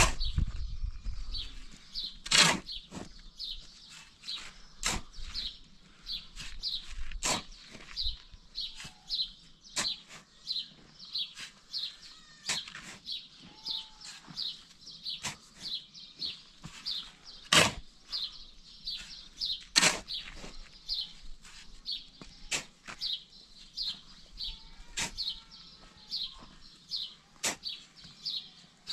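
A small bird chirping over and over, short high calls two or three times a second, with a sharp knock about every two and a half seconds.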